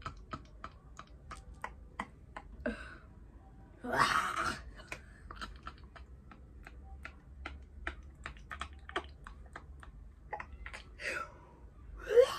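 Quick, irregular small clicks and taps, several a second, with a short breathy burst about four seconds in.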